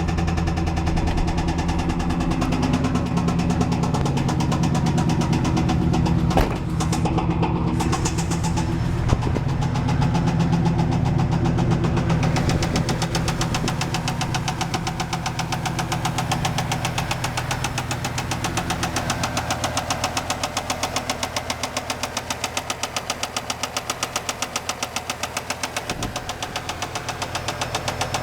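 1995 Camaro Z28's LT1 V8 engine running with a rapid, steady knocking in time with the engine: a bad rod knock. There is a single sharp tap about six seconds in.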